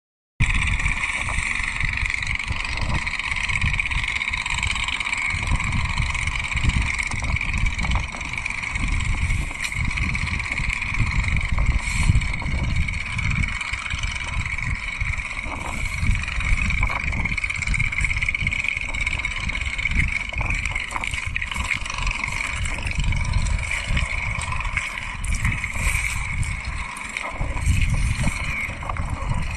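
Wind buffeting the microphone in irregular gusts, over a steady high-pitched whine that runs throughout.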